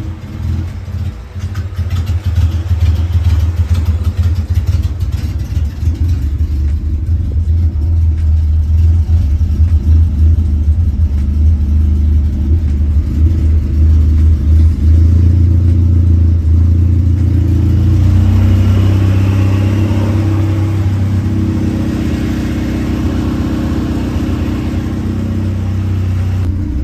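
A 1995 Acura Integra's engine runs at idle, steady but uneven. About two-thirds of the way through, the new electric radiator fan comes on and adds a rushing sound over the engine.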